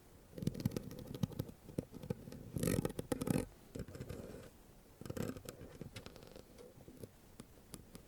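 A bare microphone being scratched directly by hand, in irregular scratchy strokes with crackling clicks that grow close and loud. The loudest stroke comes about a third of the way in, and the strokes grow sparser and quieter toward the end.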